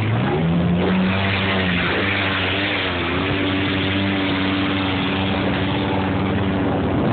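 Off-road motorcycle and buggy engines pulling up a steep dirt climb: the pitch rises in the first second, then holds steady under load.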